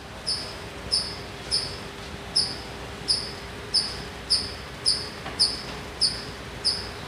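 A cricket chirping steadily, a short high chirp repeated about every half second, over a faint steady hum.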